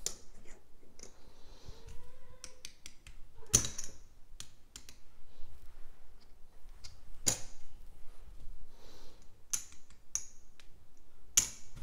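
Casino chips clicking together as they are picked up, stacked and set down on a craps layout: scattered light clicks, with a few sharper clacks.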